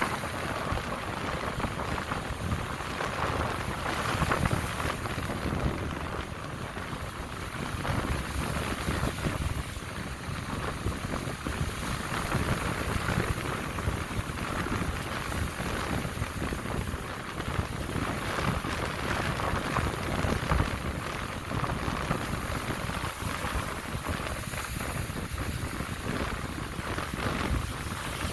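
Lake Michigan waves washing ashore: a steady, unbroken wash of surf.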